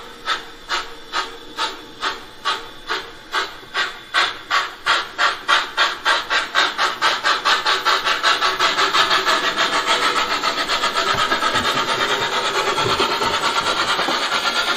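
Steam locomotive sound from the ESU LokSound 5 sound decoder in a KM1 Gauge 1 model of a class 89 (Prussian T3) tank engine, played through the model's loudspeaker: exhaust chuffs starting at about two a second and quickening steadily as the locomotive pulls away, until they run together into a fast rhythm near the end.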